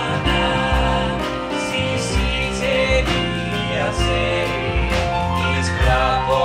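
Live jazz band of piano, double bass and drums under three voices singing in Bulgarian folk style in close harmony, with held bass notes and steady cymbal strokes.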